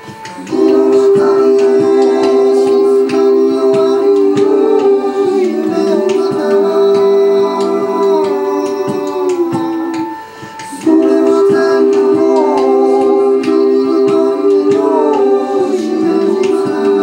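Live experimental music: a wordless voice and a small keyboard holding long, layered tones that slide in pitch near the ends of phrases. The sound breaks off briefly about ten seconds in before a second phrase starts. Scattered clicks run through it.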